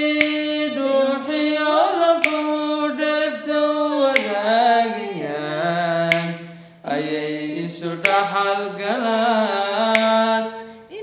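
Unaccompanied male singing of a Somali song, with long held notes that slide and bend between pitches.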